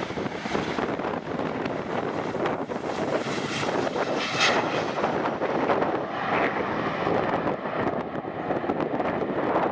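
Jet engines of a Boeing 737-800 (CFM56-7B turbofans) running as the airliner touches down and rolls out on the runway, a steady rush of engine noise that swells and grows hissier about three to four seconds in, then eases off.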